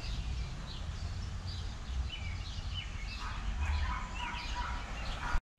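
Small birds chirping in short, scattered calls over a low steady outdoor rumble. The sound drops out briefly just before the end.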